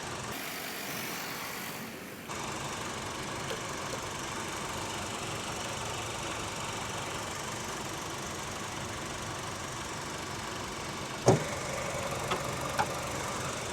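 A 2012 Honda Civic's 1.8-litre four-cylinder engine idling steadily with the AC on max, the compressor running during a refrigerant recharge. A sharp click comes about eleven seconds in, with a couple of lighter ticks near the end.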